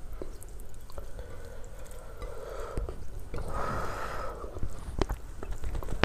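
Bare fingers mixing basmati rice with egg curry on a plate: soft wet squishing and small clicks, with a brief hiss about halfway through.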